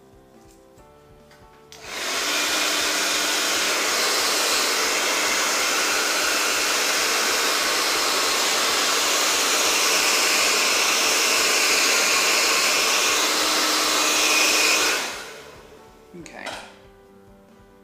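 Handheld hair dryer switched on about two seconds in and blowing a steady rush of air for about thirteen seconds. It is then switched off and winds down.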